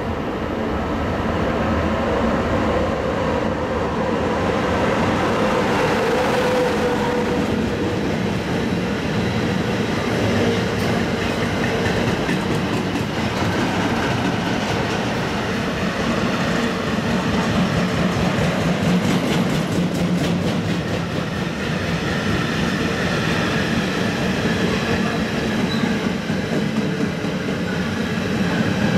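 Freight train of empty double-deck car-carrier wagons passing close by behind an electric locomotive. Its noise builds over the first two seconds, a tone falls in pitch about six seconds in as the locomotive goes by, and then the empty wagons roll past steadily.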